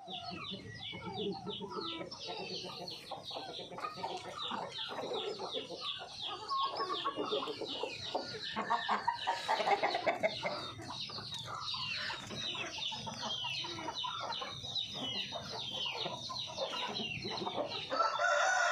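Chickens clucking, many short calls overlapping, louder about halfway through. Near the end a louder, drawn-out call starts, a rooster beginning to crow.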